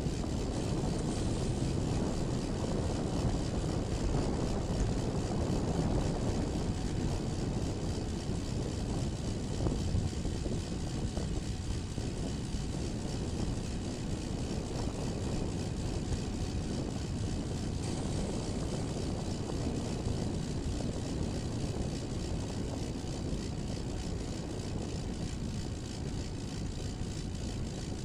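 Steady wind rumble on a bike-mounted camera's microphone from a bicycle riding at about 16 mph on a wet road, mixed with the hiss of the tyres on the wet pavement.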